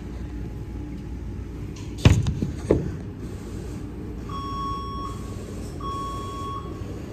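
Steady low machinery hum, with two sharp knocks about two seconds in as the phone camera is handled near the microphone. Then two long electronic equipment beeps, each just under a second and about a second and a half apart.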